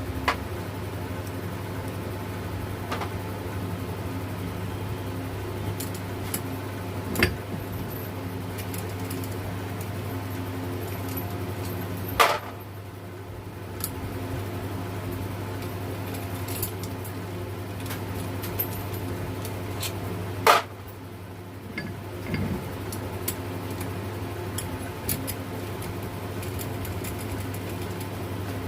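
Metal clinks and taps from hand tools and alternator parts being handled during disassembly of the alternator, over a steady low hum. Three louder sharp knocks stand out about 7, 12 and 20 seconds in.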